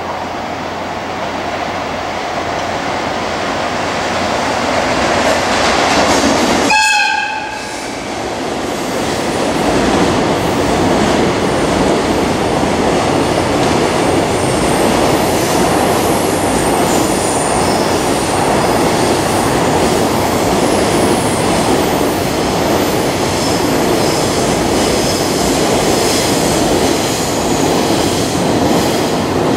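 Freight train approaching at speed, its noise building, with a brief horn note about seven seconds in. After a short break, the container wagons roll past steadily, rumbling and clattering over the rails, with short high wheel squeals.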